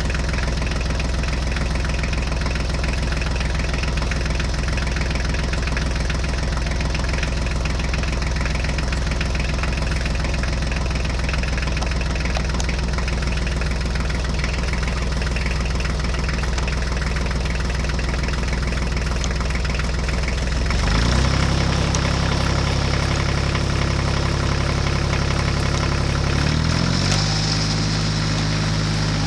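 Tractor engine sound running steadily, its pitch changing about 21 seconds in and again near the end.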